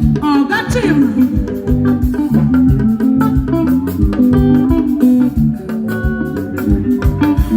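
Band music: guitar and an organ-like keyboard playing over a steady drum beat.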